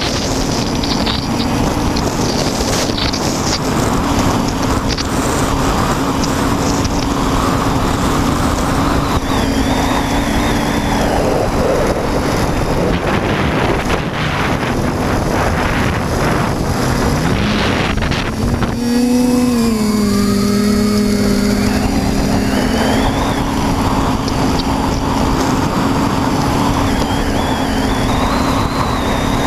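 A quadcopter's electric motors and propellers hum steadily, heard through the onboard camera's microphone with heavy wind rush. About nineteen seconds in the wind noise eases and the motor tone dips and wavers for a few seconds, then the rush builds again.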